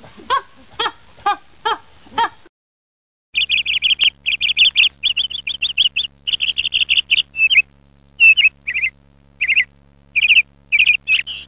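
Honking calls about twice a second for the first two seconds. Then, after a short silence, loud rapid bird chirping in quick trilled bursts, over a faint low steady hum.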